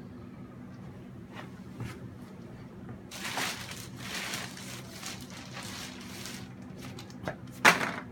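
Handling noise from painting work: a few seconds of rustling and scraping in the middle, and a few sharp knocks, the loudest near the end, over a steady low hum.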